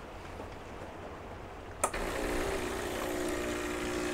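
A click, then an espresso machine starts up about two seconds in and runs with a steady hum, its pump working at the start of the descaling (Clean) cycle.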